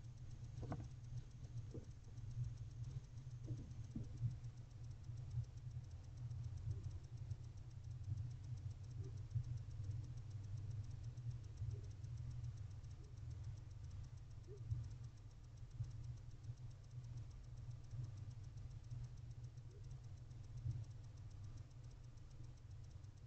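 Barn owl shifting about in its nest box: a few soft scratches and taps in the first few seconds, then only occasional faint ones, over a steady low hum.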